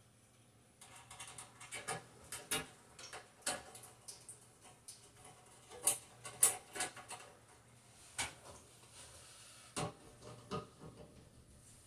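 Hand screwdriver driving a screw through a sheet-metal exhaust fan housing into the ceiling: irregular clicks, light knocks and scrapes of metal on metal, a few louder ones near the middle.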